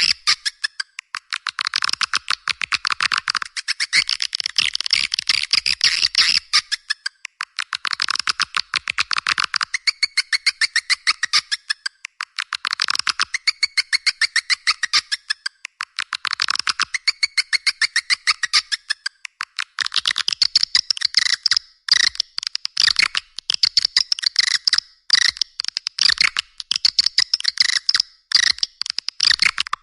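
Swiftlet calling-sound recording, the lure track played to draw edible-nest swiftlets: dense, rapid twittering chirps, many a second, swelling and fading in waves every few seconds. In the second half the chirping becomes choppier, with several brief gaps.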